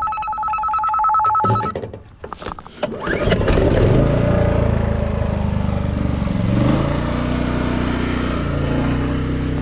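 A two-tone electronic trill for about the first second and a half. About three seconds in, the Champion 4000-watt digital hybrid inverter generator's engine starts and runs steadily, its speed stepping up a little partway through.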